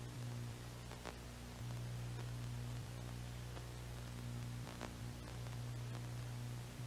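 Faint steady low hum over a hiss, with two faint clicks, one about a second in and one near five seconds.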